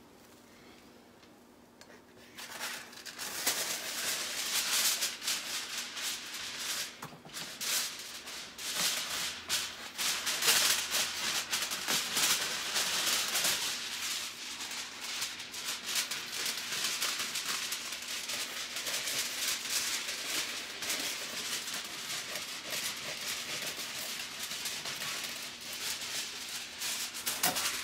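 Plastic bag and aluminium foil rustling and crinkling as they are handled and a sheet of foil is pulled off the roll: a dense, uneven crackle that starts about two seconds in.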